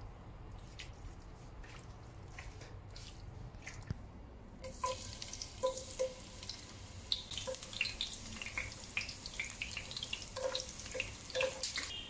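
Oil in a pot sizzling and spitting as thin slices fry in it, with a steady hiss and many irregular sharp pops, starting a little over a third of the way in. Before that there are only a few faint soft taps.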